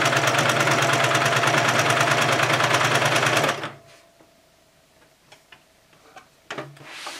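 Baby Lock coverstitch machine sewing at speed, a fast, even run of stitches, as it sews the last of a binding strip. It stops about three and a half seconds in, followed by a few faint clicks of handling.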